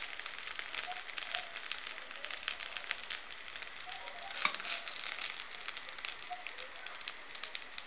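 Oil sizzling with frequent small crackling pops under a mkhanfar pancake frying in a small pan, its second side cooking after the flip.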